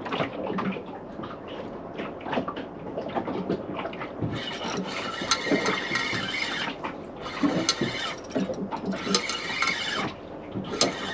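Fishing reel being wound in, its gears whirring in several stretches of one to two seconds with short pauses, starting about four seconds in, as a fish is brought up. Before that, only scattered small knocks.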